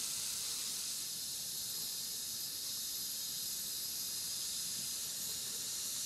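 Water boiling hard around a submerged power resistor in a small metal container: a steady hiss of steam escaping.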